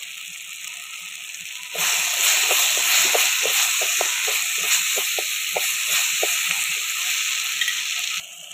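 Chopped onions and tomato with turmeric and ginger-garlic paste sizzling in hot oil while being sautéed, with repeated scrapes and taps of a wooden spatula stirring them. The loud sizzle starts suddenly about two seconds in and cuts off near the end.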